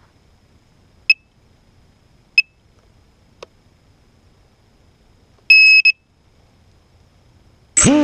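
Quadcopter giving electronic beeps: two short beeps, a faint click, then a longer double beep, the kind of signal a quad gives as it is armed. Near the end its electric motors spin up sharply into a loud rising whine.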